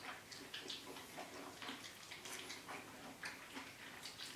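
Faint eating sounds: soft, irregular clicks and smacks of chewing, several a second.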